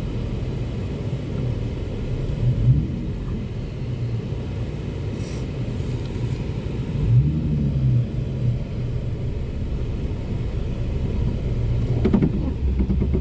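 Steady low rumble of engine and tyres heard from inside a moving vehicle driving on a snowy road.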